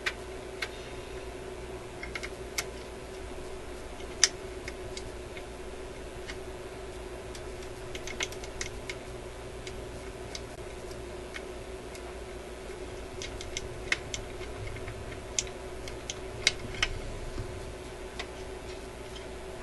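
Small, scattered clicks and taps of a screwdriver, screw and washer against a record player's tonearm head as the cartridge mounting screw is fitted, over a steady hum.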